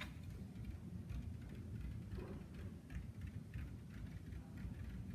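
Faint, irregular ticking and scratching of a pointed tool tip drawn slowly along a line on paper, over a low steady room hum.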